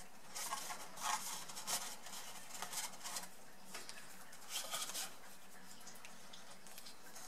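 Stiff cardstock rustling and scraping as hands fold and press the glued flaps of a paper basket, in a few short rustles over the first five seconds.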